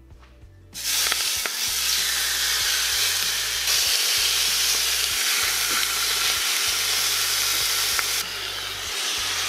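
Marinated chicken sizzling as the pieces are laid into a hot stainless steel multi-cooker pot on its sear setting. The loud, steady sizzle starts suddenly under a second in, with a few faint clicks of tongs.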